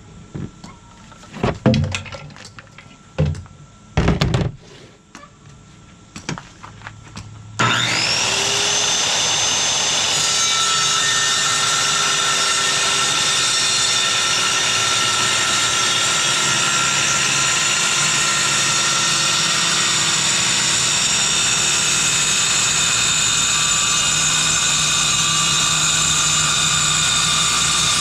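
A few knocks and clunks as a corded Ryobi circular saw with a metal-cutting blade is set on the board. About a quarter of the way in the saw starts with a whine that rises to full speed, then runs steadily as it cuts through the green fiberglass board.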